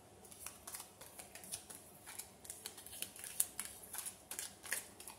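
Tarot cards being handled on a table: an irregular run of light clicks and rustles, a few a second.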